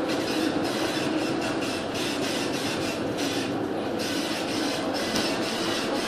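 Steady rumble with a fluttering hiss and rattle, heard aboard a ship pitching through heavy storm seas: wind, breaking waves and the working of the vessel.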